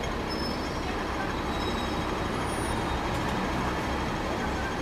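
Steady rumbling background noise with a faint hiss and no distinct events.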